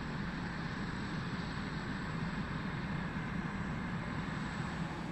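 Jet aircraft engines running, a steady low rumble with a thin high whine above it.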